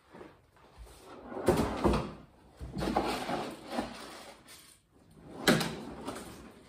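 Kitchen cupboard doors opening and closing, with rustling and clatter as a dog's food is gathered into a bowl. It comes in three bouts of noise, the sharpest near the end.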